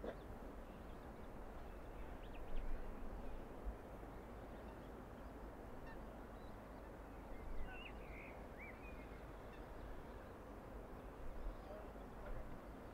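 Wetland ambience: a steady low hum of the distant city, with a few short calls from waterbirds, most of them about eight seconds in.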